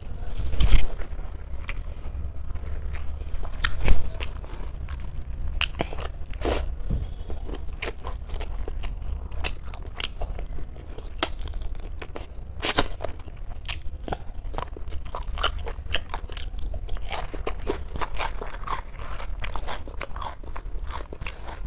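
Close-miked eating: crunchy bites and chewing, many sharp irregular clicks, with two louder knocks about a second in and about four seconds in, over a steady low hum.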